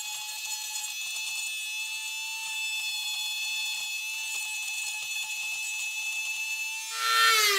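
Hand-held corded rotary tool cutting into a wooden rifle stock with a steady high whine. Near the end it is switched off and the whine falls in pitch as the motor spins down.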